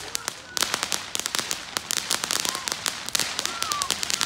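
Ground fountain firework spraying sparks with a dense, rapid crackle of many small pops that starts just before and runs on without a break.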